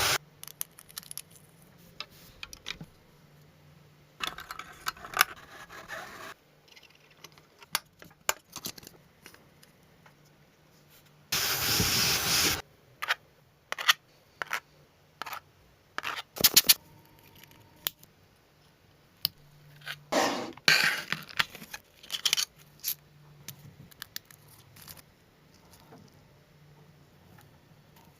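Hands-on restoration work: scattered clicks and taps of small parts being handled, with three short noisy scraping passes, the loudest about eleven seconds in.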